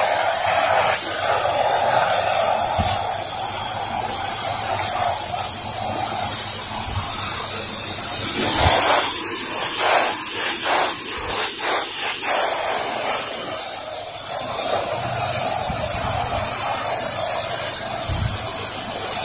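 Pressure-washer gun spraying water through a twin-nozzle holder onto vinyl house siding: a loud, steady hiss. About halfway through, the spray breaks into several short pulses for a few seconds before going steady again.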